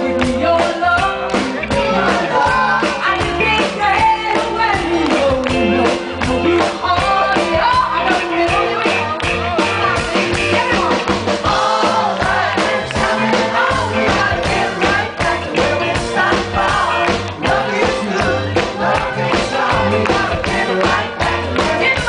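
Live band playing an upbeat pop-soul song, with a woman singing lead into a microphone over electric guitar and a steady drum beat.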